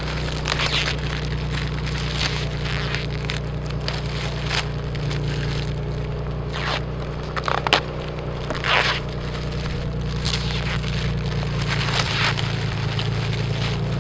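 Clear plastic shipping film being peeled off a hard roof box and crumpled by hand, crinkling and crackling in irregular bursts over a steady low hum.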